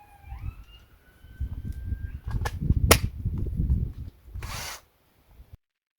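Battery drill spinning up with a rising whine, then a 25mm hole saw grinding into aluminium with a rough rumble and several sharp knocks as the teeth catch. The cutter is blunt and clogged with aluminium. The sound cuts off suddenly near the end.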